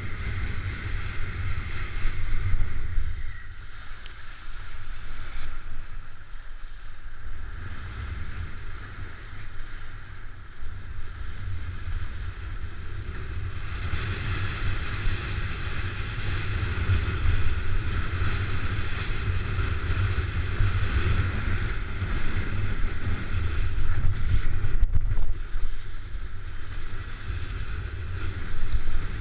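Wind rumbling over a kitesurfer's action-camera microphone, with the hiss of the kiteboard planing over choppy water. The hiss grows stronger about halfway through.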